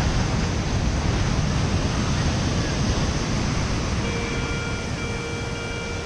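Steady rush of surf and wind over the microphone. About four seconds in, a metal detector starts giving a steady buzzy target tone, broken into long beeps about a second each, as the coil passes over something in the sand.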